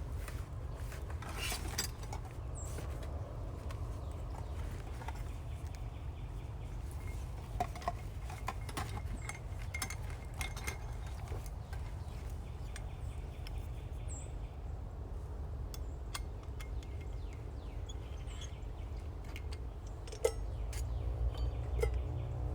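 Scattered light clinks and taps of camp cookware and utensils over a steady low rumble.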